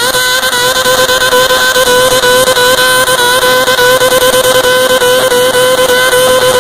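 Modified pulling garden tractor's engine running loud at high, steady revs under full load as it drags a weight-transfer sled down the track.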